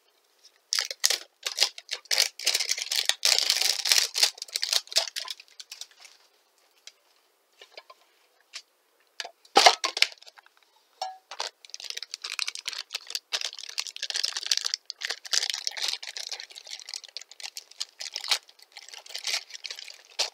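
Packaging of a Funko Mystery Mini vinyl figure being opened by hand: crinkling and tearing of its small box and wrapper in two long spells, with a single sharp click about ten seconds in.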